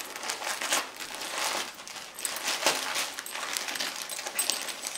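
Siberian husky tearing open a gift-wrapped present with its mouth: irregular crinkling, rustling and ripping of wrapping paper.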